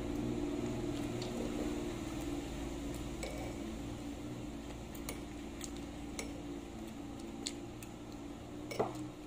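A spoon clinking lightly against a container a handful of times while eating, over a steady low hum that fades slowly toward the end.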